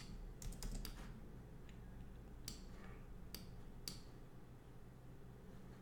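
Faint clicking at a computer: a quick cluster of clicks in the first second, then three single clicks spaced a little under a second apart, over a low steady hum.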